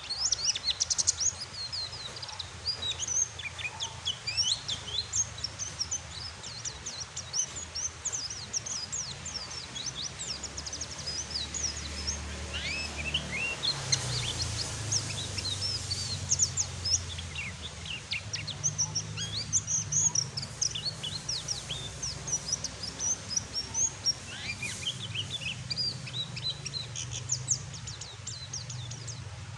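White-eyes (pleci) twittering in quick, high, rapid chirps throughout, the soft chattering 'ngeriwik' that the birds give when relaxed, over a steady background hiss of rain sound and a low hum.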